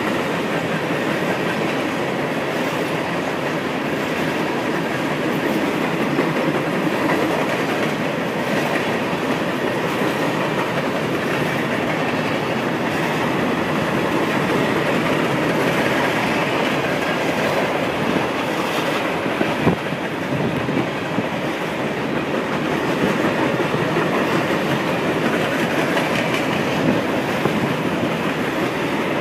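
Norfolk Southern freight train of empty woodchip hopper cars rolling past at steady speed: a continuous rolling noise of steel wheels on rail, with one sharp clank about two-thirds of the way through.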